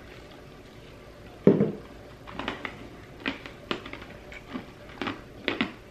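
Crushed ice being crunched between the teeth in short, irregular crunches, a few a second, with one louder thud about a second and a half in.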